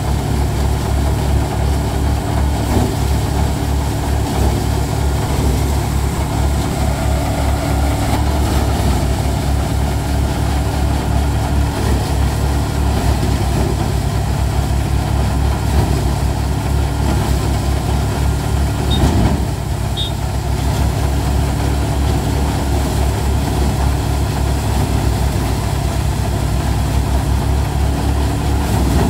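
Tractor engine running steadily while driving a five-fan paddy thresher, a constant low drone that dips briefly about two-thirds of the way through.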